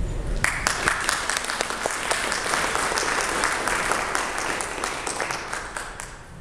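Audience applauding. The clapping starts about half a second in and dies away near the end.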